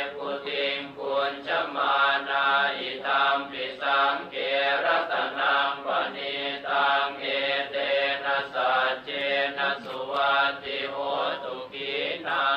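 Buddhist chanting in Pali, one steady, rhythmic recitation of syllables on a near-level pitch.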